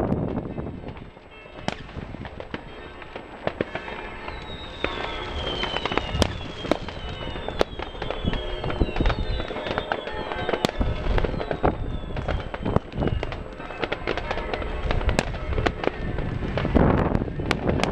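Many fireworks and firecrackers banging and crackling at scattered, irregular intervals. From about four seconds in to about thirteen, a string of short whistles rings out, each falling in pitch. Wind buffets the microphone near the start and again near the end.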